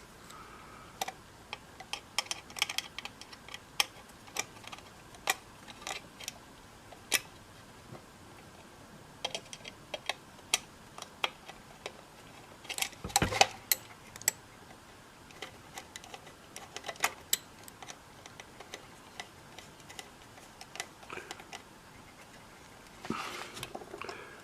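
Irregular small clicks and taps of a screwdriver and screws working against the radio's metal chassis as the audio transformer's mounting screws are tightened down, with a louder clatter about 13 seconds in.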